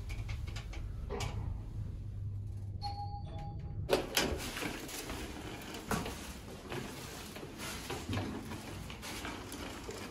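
Low steady room hum, then from about four seconds in, a hard-shell roller suitcase's wheels rolling over carpet with footsteps and soft irregular knocks.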